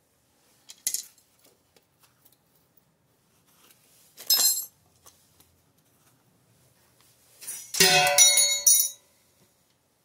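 Metal clinking and ringing against the small melting furnace and its crucible as molten copper is tended: a short clink about a second in, another around four seconds, then a longer run of ringing clinks near the end.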